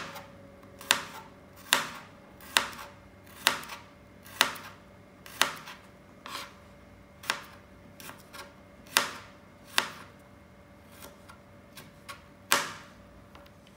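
Kitchen knife slicing garlic cloves on a plastic cutting board: a sharp single knock each time the blade meets the board, about one a second, more uneven toward the end.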